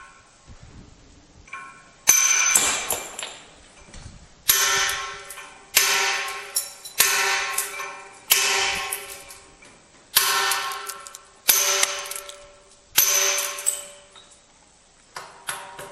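A hammer striking a steel chisel against marble in hand carving: about nine heavy blows at an uneven pace of roughly one every one and a half seconds. Each blow is a sharp clang that rings and fades, followed by a few lighter taps near the end.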